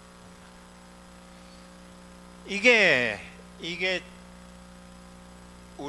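Steady electrical mains hum on the microphone's sound system. About two and a half seconds in, a man's voice makes a loud drawn-out sound falling in pitch, followed by a short word.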